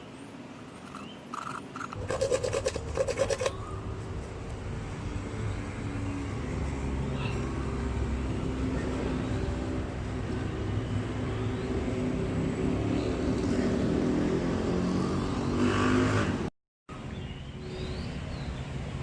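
A motor running steadily, growing gradually louder, with a short clatter of clicks as it starts about two seconds in.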